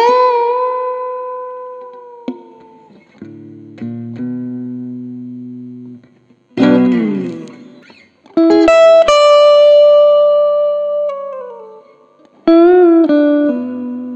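Clean tone from a Stratocaster-style electric guitar: chords struck and left to ring out, with a few single low notes in between and some chords wavering in pitch.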